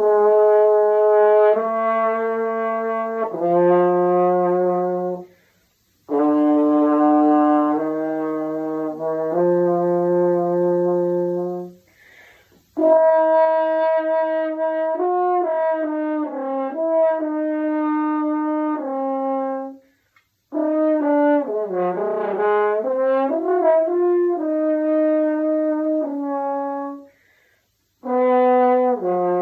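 A French horn played solo: a slow melody of held notes in phrases several seconds long, separated by short pauses, with a quicker run of changing notes about two-thirds of the way through.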